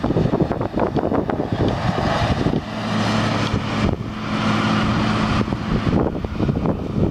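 Diesel engine of a Link-Belt 240LX long-reach excavator running under hydraulic load as the machine swings and works its boom. A ragged, rumbling noise throughout, with a steady low engine hum coming through plainly from about two and a half to five and a half seconds in.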